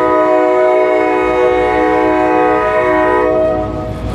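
Air horn of SRY Rail Link EMD SD38AC locomotive 381 sounding one long blast, a chord of several notes held together, as it leads its train over a road crossing. The horn cuts off near the end, leaving the low rumble of the passing locomotives.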